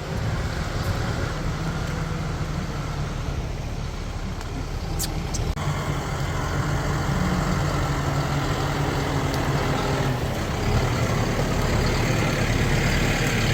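A motor vehicle's engine running steadily, a low hum under a background of noise, with a short click about five seconds in.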